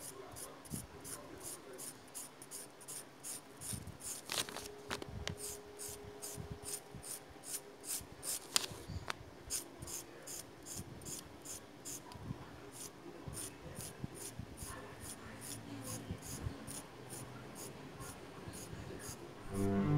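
Mechanical pencil lead scratching across vellum board in quick, even back-and-forth hatching strokes, two or three a second.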